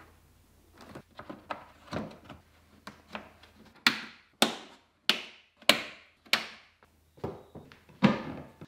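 Suzuki Jimny's plastic plenum (cowl) trim panel being pressed back into place by hand: a run of sharp clicks and knocks, lighter at first, then five louder snaps a little over half a second apart, and one more knock near the end.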